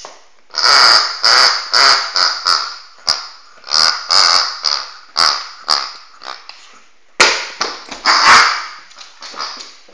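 A dog chewing a toy pig, setting off its snorting squeaks over and over in short bursts, a brief lull, then a loud run of squeaks.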